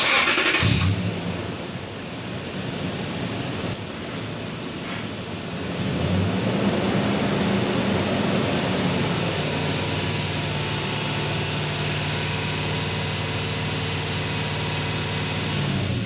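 A 2005 Lexus GX470's 4.7-litre V8 heard at the tailpipe through an aFe Mach Force cat-back exhaust. It starts with a loud burst, then idles, the pitch rising about six seconds in and easing back to a steady idle about nine seconds in.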